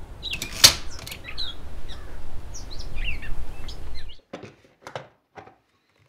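Steady background noise with small birds chirping and one sharp snap about half a second in. About four seconds in it cuts out abruptly, and a few light clicks and knocks follow as a hard plastic case is handled.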